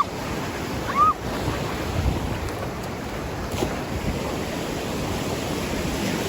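Ocean surf washing and breaking, a steady rush with wind buffeting the microphone. Two brief high-pitched calls about a second apart near the start.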